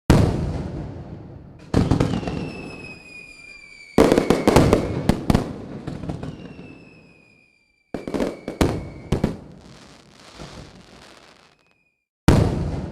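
Fireworks going off: a series of sudden loud bangs that each fade away, with quick crackling after the third and fourth, and thin high whistles sliding slowly down in pitch between bursts.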